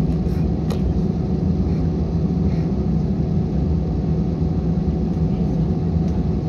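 Steady low rumble of an Airbus A320-family airliner's jet engines and airflow, heard from inside the cabin as the plane taxis before takeoff.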